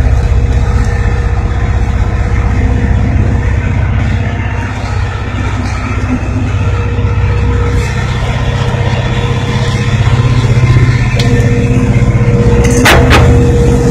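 Diesel-electric locomotive engine running steadily under way, heard from inside the cab as a loud low drone with a steady hum. A brief sharp clatter near the end.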